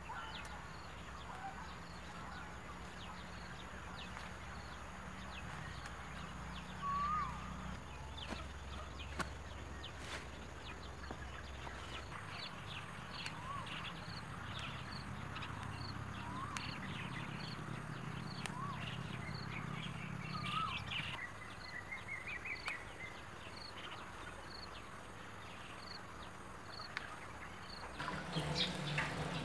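Outdoor garden ambience: scattered short bird chirps over a faint, steady low rumble, with a run of quicker chirps a little after the middle.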